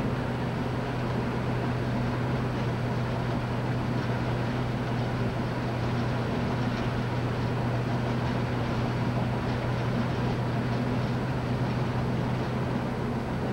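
Car driving along at a steady speed: continuous engine and tyre noise with a steady low drone, heard from inside the cabin.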